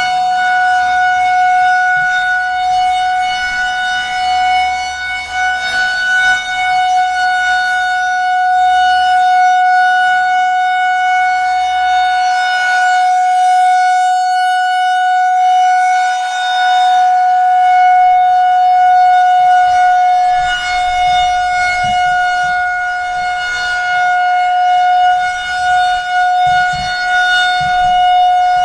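Federal Signal 2001-130 electromechanical tornado siren sounding its steady full-alert tone, one held pitch with strong overtones during a test activation.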